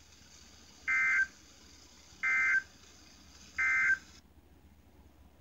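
Three short bursts of Emergency Alert System SAME data tones, the warbling two-tone end-of-message code that closes a weather radio alert broadcast, about a second and a half apart. The faint broadcast hiss cuts off about four seconds in as the transmission ends.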